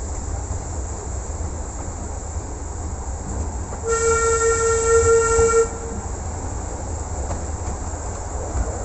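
Steam locomotive whistle giving one blast of under two seconds, about four seconds in, over the steady low rumble of the train running along the line.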